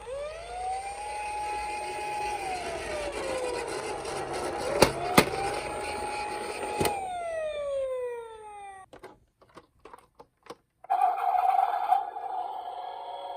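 Toy emergency vehicle's electronic siren sounding a wind-up wail: it rises, holds and falls away, twice, with a few sharp clicks in the middle. After a short gap with a few clicks, a steady high siren tone starts near the end.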